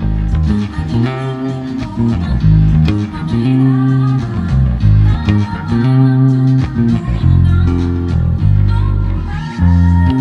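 Riverhead RBP-3 precision bass played fingerstyle, a groove of held low notes changing about every half second, over a backing song.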